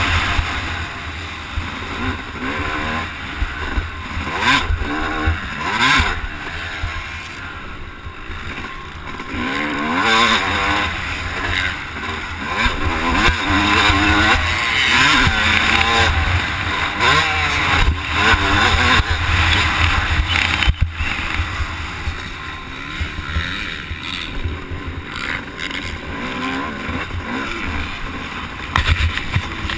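Yamaha motocross bike's engine revving as it is ridden around a dirt track, its pitch climbing and dropping many times over, with a heavy low rumble underneath.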